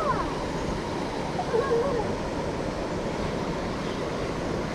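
Steady rush of flowing creek water, with a couple of faint snatches of voice.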